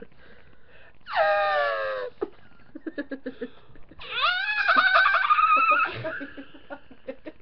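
A person's voice making deliberately strange high-pitched vocal noises: a cry that falls in pitch about a second in, then a longer, louder wavering cry from about four to six seconds, with soft giggles between.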